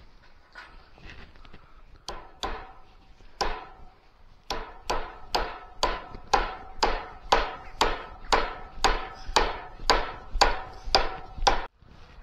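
Hammer nailing a steel roof-tile sheet down onto wooden battens: a few strikes, then a steady run of about two a second, each ringing briefly off the metal sheet.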